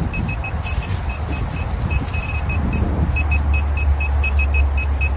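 Handheld metal detecting pinpointer beeping at one high pitch in quick, uneven pulses as it is worked over a buried target in the dig hole, with a low rumble underneath.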